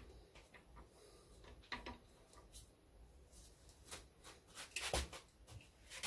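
Faint, scattered metal clicks and knocks of a socket wrench on cylinder head bolts during angle tightening, the loudest about five seconds in.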